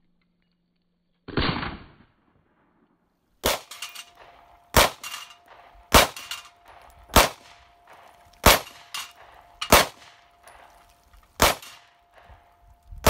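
A single pistol shot slowed down, deep and drawn out, about a second in. Then a string of 9mm Smith & Wesson M&P pistol shots, one about every second and a quarter, with steel plate targets clanging and ringing as they are hit.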